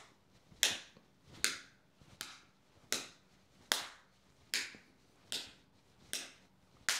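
A red strawberry candy twist held up by one end and struck repeatedly with the other hand. It gives nine sharp snaps about one every 0.8 seconds, testing how tough the candy is.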